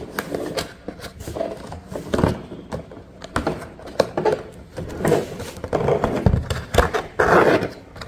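A cardboard box being pried open by hand: fingers tapping and scraping at the end flap, with scattered knocks and rustles, and a longer tearing rasp near the end as the flap pulls free.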